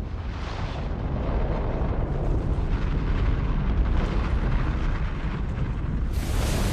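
Film sound effect of an avalanche: a dense, steady rumble of snow sliding down, heavy in the bass. It sounds dull and muffled until about six seconds in, then turns brighter and fuller.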